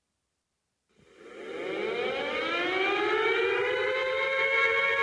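Mailbox-type outdoor warning siren starting up about a second in, winding up with several tones sounding together that rise steadily in pitch as the rotor comes up to speed, levelling off near the end.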